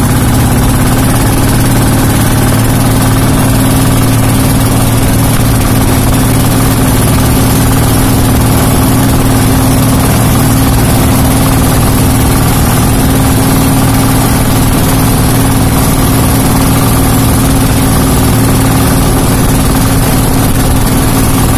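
Fishing boat's engine running steadily under way, a loud constant drone with the rush of wind and sea over it.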